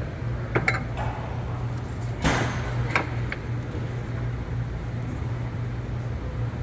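A few sharp metal clicks and knocks, the loudest a short scraping clunk a little over two seconds in, as the aluminium TorqStorm supercharger head unit is handled and seated against its mounting bracket. A steady low hum runs underneath.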